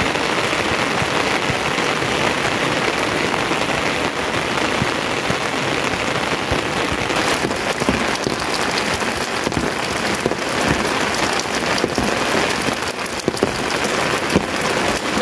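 Steady rain falling, an even hiss with many individual drop strikes, more of them from about halfway.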